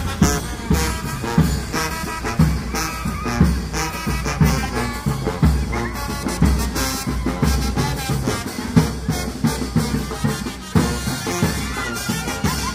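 Street brass band playing: brass horns carrying a tune over a steady bass drum beat.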